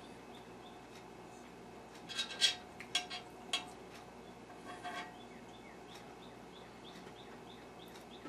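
Fork or knife clinking and scraping on a plate: a short cluster of sharp clicks a couple of seconds in, and another scrape about five seconds in. A faint, regular high chirp repeats about three times a second in the background.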